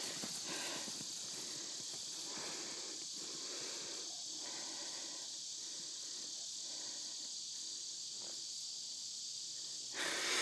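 Steady high-pitched chorus of insects, with a brief louder rush near the end.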